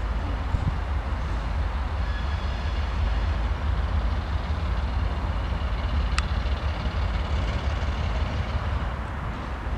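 2M62U twin-section diesel locomotive approaching at low speed, its two-stroke V12 diesel engines running with a low rumble. Faint high whining tones join in about two seconds in, and there is a single sharp click a little after six seconds.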